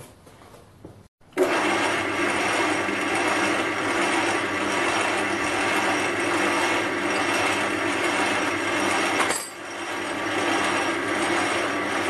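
Small metal lathe running steadily while turning a cast aluminium gear blank: a steady machine hum with several held tones. It cuts in abruptly about a second and a half in, after a short quiet stretch, and dips briefly near nine seconds.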